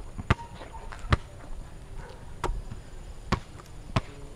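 Basketball dribbled on an outdoor concrete court: five sharp bounces at uneven intervals, roughly one a second.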